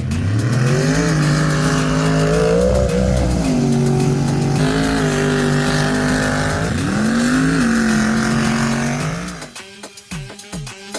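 A mega truck's engine running hard at high revs. Its pitch climbs at the start, dips about three seconds in, then climbs and drops again around seven seconds. The engine fades out near the end and music with a steady beat takes over.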